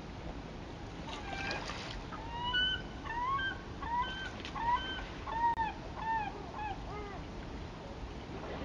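A bird calling: a quick run of about a dozen rising-and-falling calls, starting about two seconds in and stopping near the end, over a steady low background hiss.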